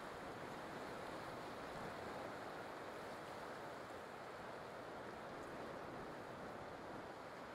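Faint, steady wash of ocean surf.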